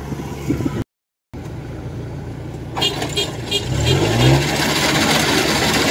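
Kubota DC-105X combine harvester's diesel engine running as the machine drives on its tracks, revving up with a rising pitch about four seconds in and getting louder. The audio cuts out completely for about half a second about a second in.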